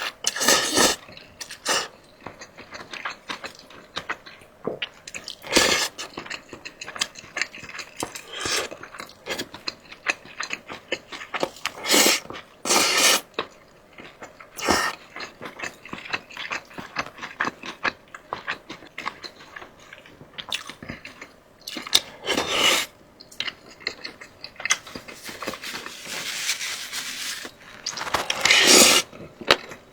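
Close-miked eating: chewing and crunching with irregular small clicks and crackles, a few louder bites, and a longer noisy stretch near the end.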